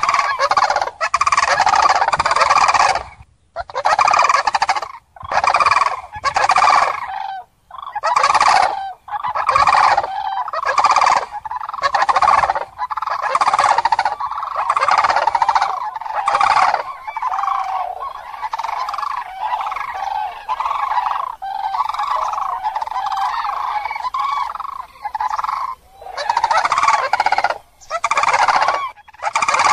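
A flock of common cranes calling, with many loud calls overlapping. The calls come in separate bursts about once a second, run together into an unbroken chorus for several seconds past the middle, then break into bursts again near the end.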